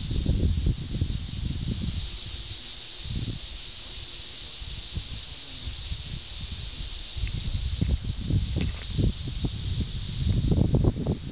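A steady high-pitched hiss, with wind buffeting the microphone in low gusts that ease off for a few seconds in the middle and pick up again towards the end.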